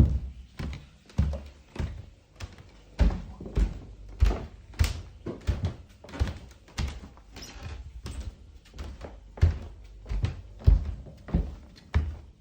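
Footsteps at a steady walking pace, each step a dull thud, a little under two steps a second.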